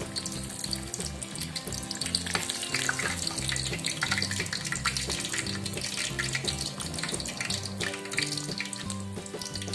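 Breadcrumb-coated sausage corn dog deep-frying in hot oil in a steel wok: a steady crackling sizzle of many small pops. Background music with low sustained notes plays under it.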